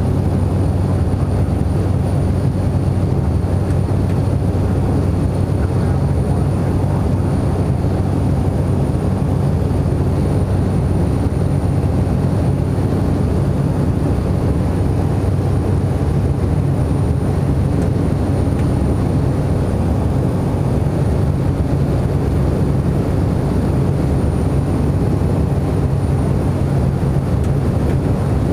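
Cessna Caravan Amphibian's Pratt & Whitney PT6A turboprop engine and propeller droning steadily in flight, heard from inside the cockpit, with a thin high steady whine above the low drone.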